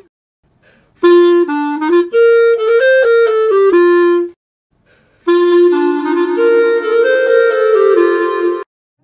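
Clarinet playing two short melodic phrases through TikTok voice effects. The first, through the Electronic effect, has separate stepped notes. After a pause of about a second, the second phrase comes through the Echo effect, its notes ringing on and piling up over one another.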